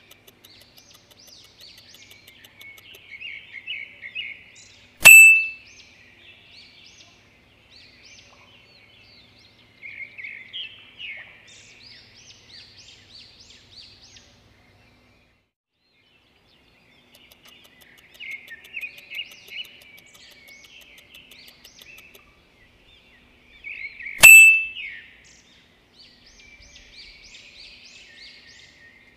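Background birdsong track: bursts of small birds' chirps and twitters that come and go in stretches a few seconds long. Twice, about five seconds in and again about twenty-four seconds in, a loud sharp click with a brief ringing tone cuts through.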